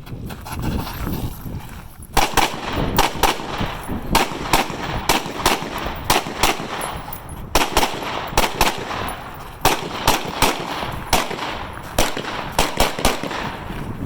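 Rifle shots from several shooters on a firing line, irregular and overlapping, several a second, starting about two seconds in after a low rumble, with a short lull in the middle.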